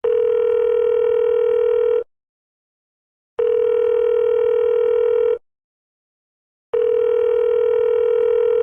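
Telephone ringing tone heard down the line: three identical long, steady electronic beeps, each about two seconds, with short silent gaps, as a call rings out before voicemail answers.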